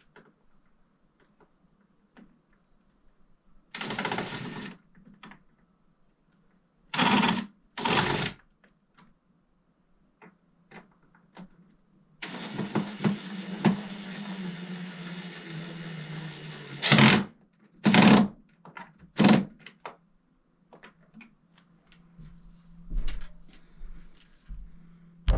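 Power drill driving screws in short trigger bursts, with one longer steady run of about four seconds in the middle; the driving goes unevenly, as by someone still finding the knack of the drill.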